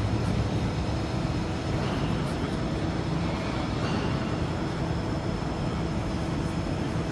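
Dörries vertical turret lathe running: a steady low machine hum and noise with a faint high-pitched whine.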